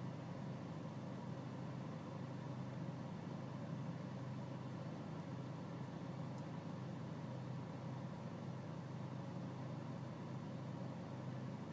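BMW E46 320Cd's four-cylinder diesel engine idling steadily with a low hum. This is the rough idle that is being diagnosed.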